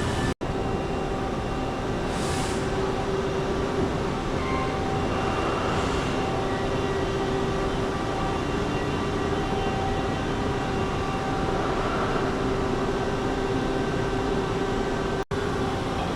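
Steady mechanical running noise: an even rumble with a few steady humming tones through it, broken by two brief drop-outs, one just after the start and one near the end.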